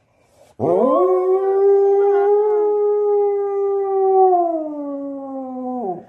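A husky howls once. After a short pause the howl rises quickly, holds one steady pitch for several seconds, dips a little lower, and drops away near the end.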